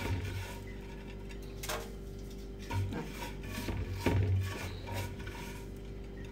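Hands rubbing wheat seffa grains with butter and argan oil in a bowl: soft, scattered rubbing strokes over a faint steady hum.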